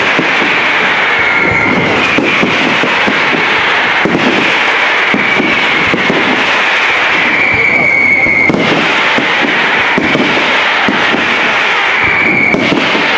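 Pirotecnia Global-Foc castillo fireworks display: dense, continuous crackling and popping from bursting shells, with shrill whistling tones over it. The loudest whistle cuts off suddenly about eight and a half seconds in.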